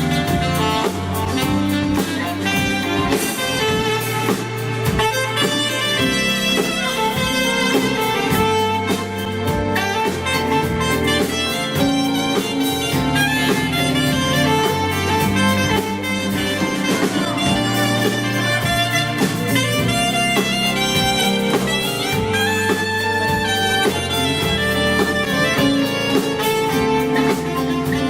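Live band playing a pop-soul cover: drum kit, bass and a lead melody, running without a break.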